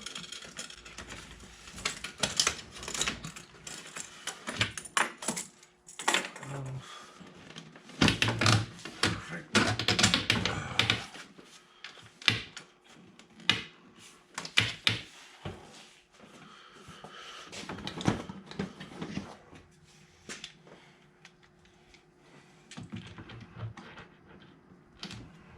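Hand tools and parts clicking, clattering and knocking, with bursts of rapid clicking, while the factory air intake is unbolted and pulled apart.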